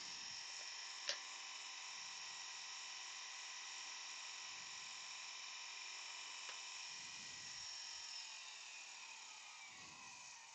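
Wood lathe motor running with a steady whine. Over the last couple of seconds its pitch falls as the lathe slows. There is a single sharp click about a second in.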